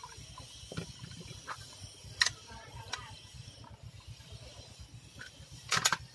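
Scattered clicks and clacks of a mini PC's aluminium case and metal internal frame being picked up and set down on a tabletop, the loudest a little over two seconds in and a quick double clack near the end.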